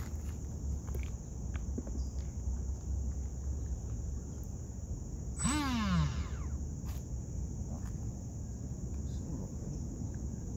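Steady high-pitched insect chirring over a low rumble, with a brief falling whine about five and a half seconds in.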